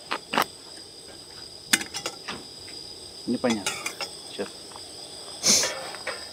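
Insects shrilling steadily at a high, even pitch, with a few sharp clicks scattered through and a short hiss about five and a half seconds in.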